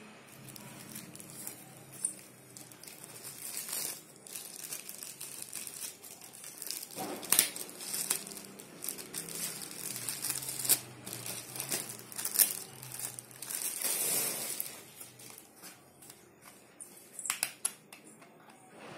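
Thin clear plastic wrapping crinkling and rustling as it is handled around a keyboard, with irregular sharp crackles, loudest in the middle. It thins out near the end to a few separate clicks.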